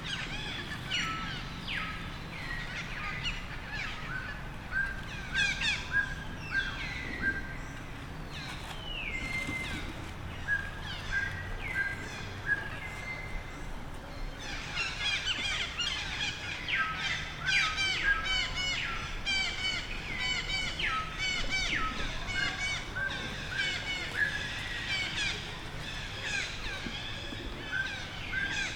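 Rapid series of short, high-pitched animal chirping calls, many repeated notes with a few falling ones, growing denser about halfway through.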